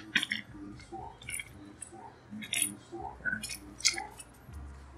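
A small plastic parts bag holding cotter pins being handled: faint, irregular crinkling and light clicks.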